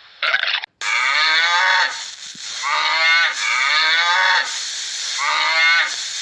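Cattle mooing: a series of about four drawn-out moos in quick succession, each falling in pitch.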